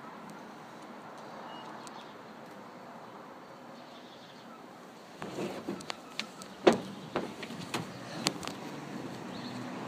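Steady low background noise, then from about halfway a run of sharp clicks and knocks, the loudest about two-thirds in.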